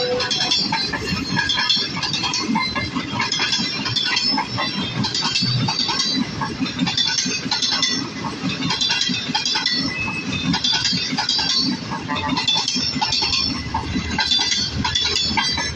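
Passenger train coaches rolling past on the track. The wheels on the rails make a steady rumble, with continual high metallic clinking and short squeaks.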